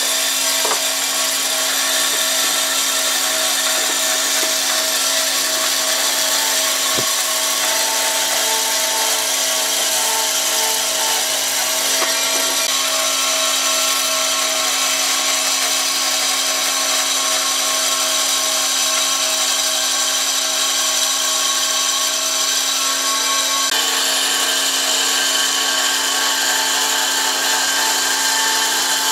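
Bandsaw running and ripping lengthwise through a thick block of dried tree-stump wood: a steady motor hum under a dense, even hiss of the blade cutting.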